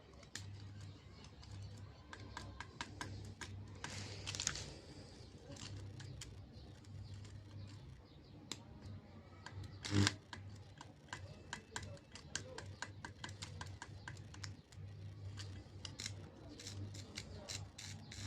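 Homemade welder built from fluorescent and sodium-lamp ballasts humming on the mains, the hum swelling and fading, with irregular crackling clicks as an arc is struck and broken. One loud knock about ten seconds in.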